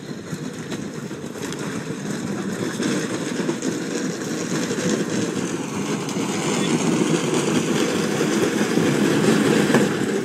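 Hull of a swamped small boat scraping up a boat ramp as it is dragged ashore by a rope, a steady rough scraping that grows louder as it nears and stops suddenly at the end.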